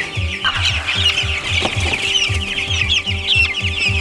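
A brooder full of young chicks peeping loudly and continuously, many short high cheeps overlapping into one chorus. Under it runs a low throb at about three pulses a second.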